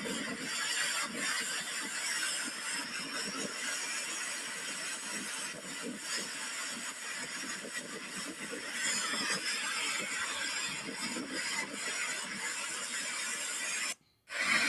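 River in full flood, its muddy torrent rushing steadily. The sound cuts out for a moment near the end, then the rushing comes back.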